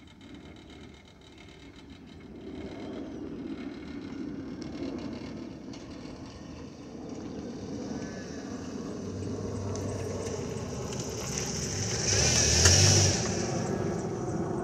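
Boeing 737-900ER's CFM56-7B turbofan jet engines at climb power as the airliner passes overhead: a steady rumbling roar that grows steadily louder, peaking about twelve seconds in.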